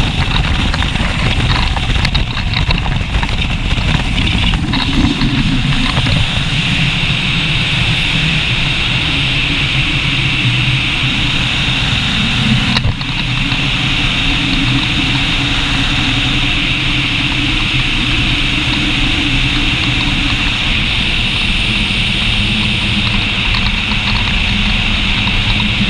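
Cherokee 80 motor yacht running at speed: a steady, loud engine drone mixed with the rush of water from the hull and wake, dipping briefly about halfway through.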